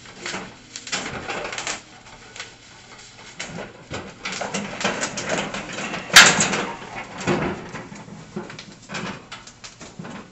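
Scattered rustling, scraping and clicking of grill parts and packing being handled and pulled free during assembly, with one sharp knock about six seconds in.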